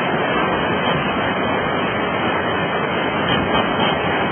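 Fast, turbulent floodwater of a swollen river rushing, a steady noise that holds at one level throughout.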